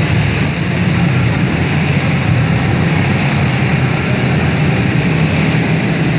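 Briggs & Stratton Animal four-stroke single-cylinder kart engines running steadily at race speed on a dirt track.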